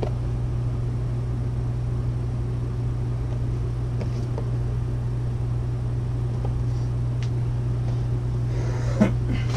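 A steady low mechanical hum runs throughout, with faint taps and rustles of cardboard collectible-figure boxes being handled and one sharper tap near the end.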